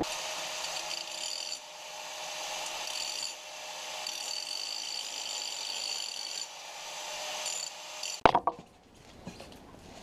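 Angle grinder with a cutoff wheel cutting into the steel end of a John Deere 535 baler roller: a steady high whine whose strength shifts as the wheel bites. It stops about eight seconds in with a sharp knock.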